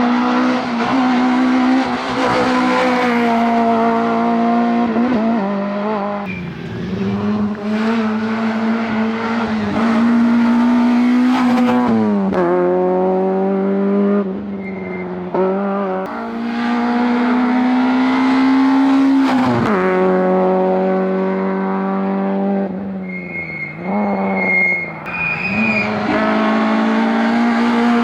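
Small front-wheel-drive rally hatchbacks at full throttle: a Citroën Saxo, then from about six seconds in a Peugeot 106. The engine note climbs steadily and drops sharply at each gear change or lift, with brief tyre squeals.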